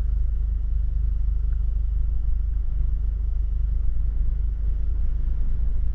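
Steady low rumble heard from inside a car, with no words over it.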